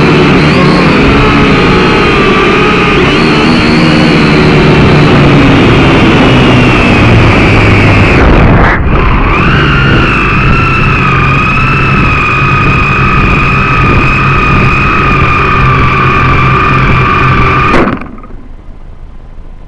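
Syma X5C quadcopter's small electric motors and propellers whining loudly, heard from its onboard camera, with a brief dip and change of pitch about halfway. Near the end the motor noise cuts off suddenly as the drone comes down in a crop, leaving only a low hiss.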